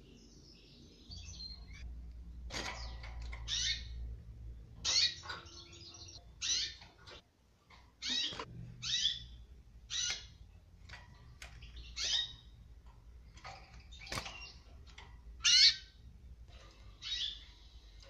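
Caged canaries giving short chirping calls, about one a second, with one louder call near the end.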